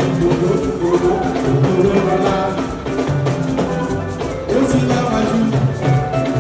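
Live band playing dance music, with bass guitar and drums keeping a steady beat.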